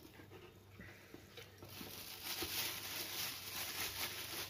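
Cardboard packaging being opened and a plastic-wrapped inner box being slid out of its carton. There is light handling at first, then a rustling hiss from about a second and a half in.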